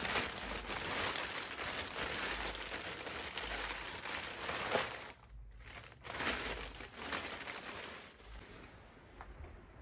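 Clear plastic bag crinkling and rustling as it is pulled off a pressure pot, with a short pause about five seconds in before more crinkling that fades out.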